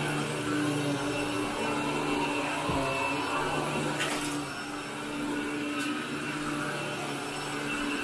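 Upright commercial vacuum cleaner running over carpet, its motor humming at a steady pitch as it pulls dry soil from the pile. A short rushing hiss comes about four seconds in.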